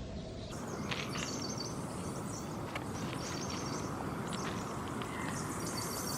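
Bird chirping in short high phrases every second or two over a steady low hiss, with a few faint clicks.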